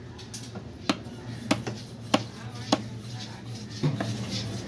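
Long-bladed knife chopping barramundi flesh into chunks on a wooden chopping block: about five sharp chops, a little over half a second apart.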